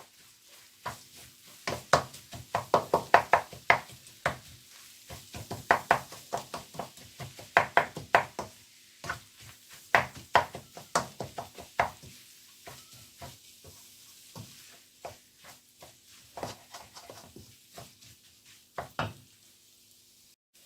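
A cooking spoon stirring and repeatedly knocking and scraping against a frying pan as vegetables are tossed with broken-up scrambled egg, with a faint sizzle. The knocks come thick and fast for the first half, then thin out.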